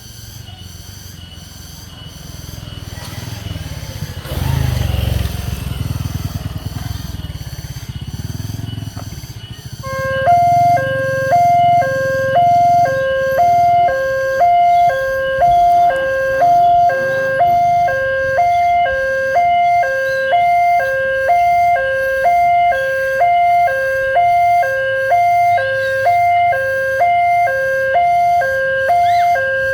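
Indonesian railway level-crossing warning siren starting up about ten seconds in: a loud electronic two-tone alarm that steps back and forth between a low and a high tone, a little under one cycle a second. Before it starts there is a low rumble that swells briefly about five seconds in.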